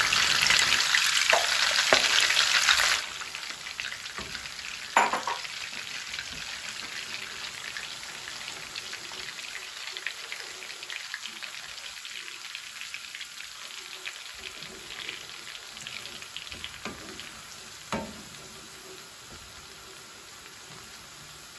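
Minced garlic sizzling in hot melted butter in a frying pan. The sizzle is loud as the garlic goes in, then settles about three seconds in to a softer, steady sizzle as it is stirred with a wooden spoon, with a few sharp knocks against the pan.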